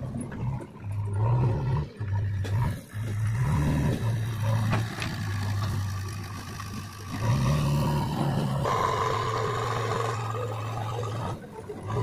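JCB 3DX backhoe loader's diesel engine running under load, revving up several times as it works the loader bucket.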